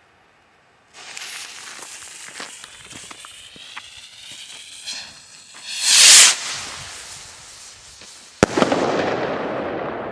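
PyroArt 'Purple Chrysanthemum' ball-head firework rocket: the lit fuse hisses and sputters for about five seconds, then the rocket launches with a loud whoosh. About two seconds later comes a sharp bang as the head bursts, a hard-hitting break, and it dies away in a long echoing rumble.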